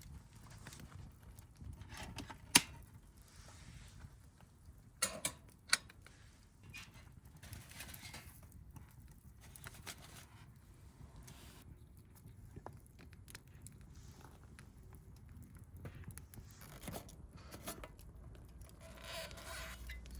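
Camp cooking gear being handled: a few sharp clicks and knocks, the loudest about two and a half seconds in and a quick cluster of three around five seconds in, between bouts of rustling.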